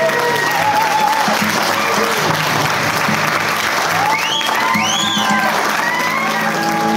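A room of guests applauding, with voices calling out over the clapping about four to six seconds in, over background music.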